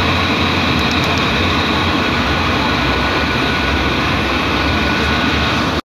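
Steady running noise inside a transit vehicle, heard at the operator's console: a low hum with faint high whines. It cuts off suddenly at the very end.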